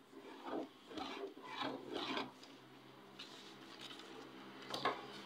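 Paper rubbing and scraping as a pen and pattern ruler are worked over drafting paper. There are four short rubbing strokes in the first two and a half seconds, then fainter handling with a brief sharper scrape near the end.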